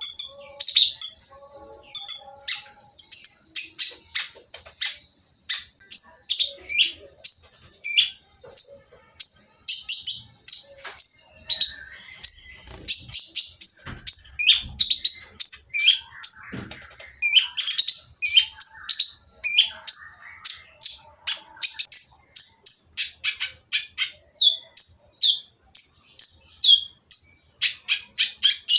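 Kolibri ninja (konin), a sunbird, singing a fast, unbroken run of short, high, harsh chirps.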